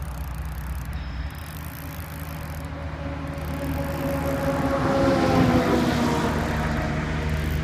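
A steady low engine hum, joined by a louder engine note that swells about five seconds in and drops slightly in pitch as it passes.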